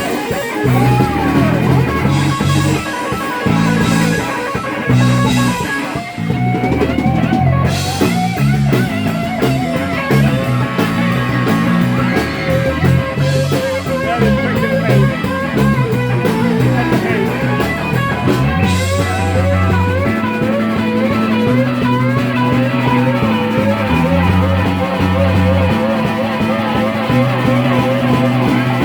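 Live rock band playing an instrumental passage: an electric guitar lead with bent, wavering notes over bass guitar and a drum kit with cymbals.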